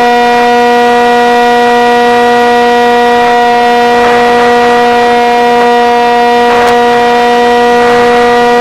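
RC airplane's motor and propeller running at a steady pitch, heard loud and close from the camera on board, with short rushes of wind noise a few times as the plane banks.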